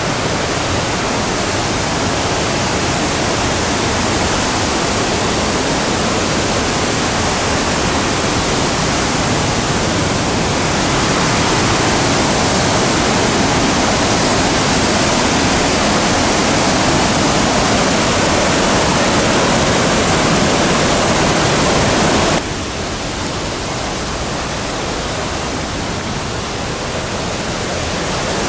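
Begbie Falls, a large volume of water pouring through a narrow canyon, making a steady, loud rush of falling water. It swells a little about a third of the way in and drops suddenly in level near the end.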